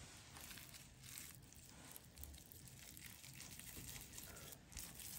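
Near silence with faint, soft handling noises and a few light ticks: hands rolling and shaping sticky sausage-and-cheese mince into a patty.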